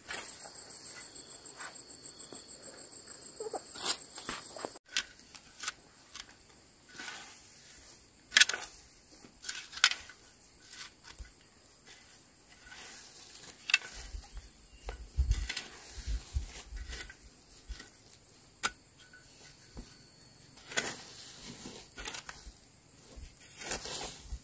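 A shovel blade chopping and scraping into dry, weedy soil in irregular strokes, with a few dull low thumps midway. An insect trills rapidly for the first few seconds, then stops abruptly.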